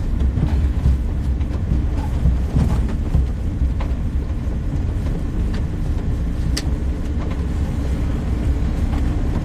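Steady low rumble of a moving car heard from inside the cabin, with a few faint clicks.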